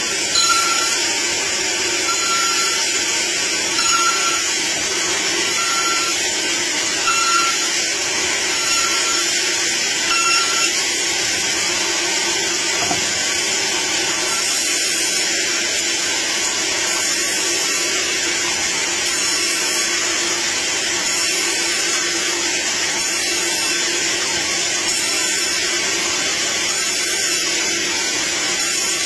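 Band saw running steadily, its blade resawing a wooden board into thin slabs. A short high tone repeats about every three-quarters of a second through the first third.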